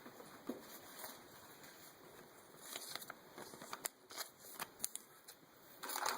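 Faint handling of Pokémon trading cards: light clicks and rustles of cards being shuffled and set down, busiest in the middle.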